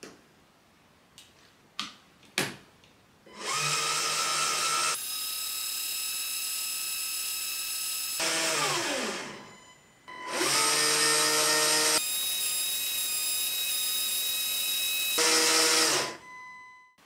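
Small LEGO Technic electric motor whirring as it turns a worm gear and long axle to open the sluice gate, after a few light plastic clicks. It runs for several seconds, winds down with a falling pitch about eight seconds in, then starts again and cuts off suddenly near the end.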